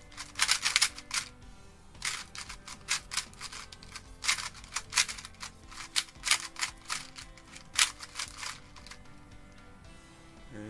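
GAN 251M Leap magnetic 2x2 speedcube being turned quickly by hand, its layers snapping into place with sharp clicks in quick runs and short pauses, the distinctive magnetic click of its positioning magnets.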